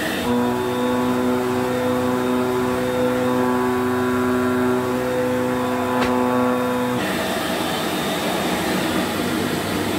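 1991 Electrolux Z1070 Turbo2 Super upright vacuum cleaner running, a steady motor hum with a whine over rushing air. About seven seconds in the pitched hum drops out and the sound turns rougher and noisier. It is running with a fresh dust bag and a new belt and works a million times better.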